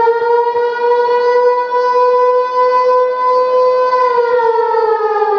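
A siren wailing: one long held tone that starts falling in pitch about four seconds in.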